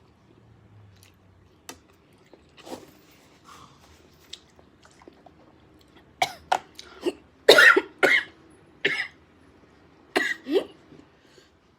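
A woman coughing and clearing her throat in a run of sharp coughs about halfway through and two more near the end, after a few faint clicks. The coughing comes from eating very spicy Samyang fire noodles.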